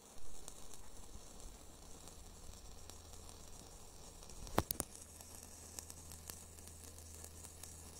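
Static crackle and hiss from an audio amplifier played through a speaker with its inputs shorted, the static noise fault it is being checked for. A low hum comes in partway through, and there is a sharp click about halfway.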